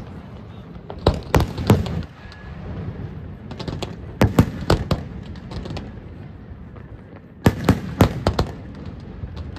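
Aerial firework shells bursting in three quick clusters of sharp bangs, about a second in, around four seconds in and again near the end, with a low rumble between the bursts.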